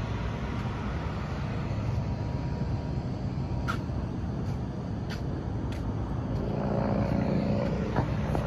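Steady low rumble of traffic noise, with a couple of faint ticks midway.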